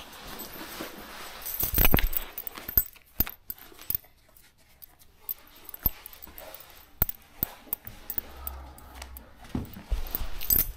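White trainers being pulled off and set down on a carpeted floor: scattered knocks, clicks and rustling, the loudest thump about two seconds in.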